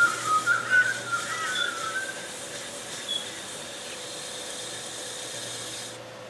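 A cloth pad pressed against a Golden Cypress vase spinning on a Record Power Coronet Herald lathe, making a steady rubbing hiss over the lathe's faint hum; the hiss cuts off about six seconds in when the pad is lifted. Over the first two seconds a bird chirps in quick, warbling whistles.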